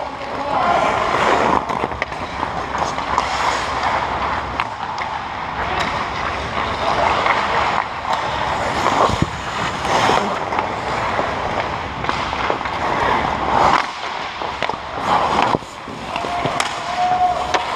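Ice hockey skates scraping and carving across rink ice in repeated swells, with a few sharp clacks, one about nine seconds in and one near fifteen seconds.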